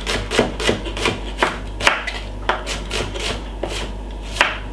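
Kitchen knife finely chopping a red onion on a wooden cutting board: a steady run of short knife strikes on the board, about two to three a second.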